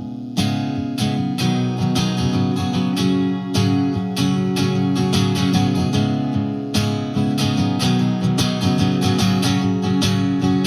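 Acoustic guitar strummed in a steady rhythm through an instrumental break of a live song, without vocals; the strumming picks up again after a brief drop right at the start.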